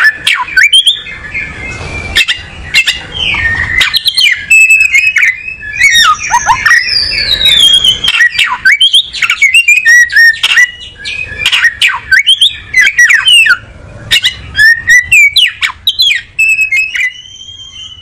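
Male oriental magpie-robin singing: a long, varied run of whistled notes with quick rising and falling glides and sharp clicking notes mixed in.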